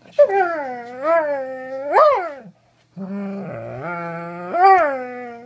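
Doberman howling and whining in a protesting tantrum: a long moaning run that rises to three loud yelping peaks, a short break about two and a half seconds in, then a lower grumbling moan that climbs to another howl near the end.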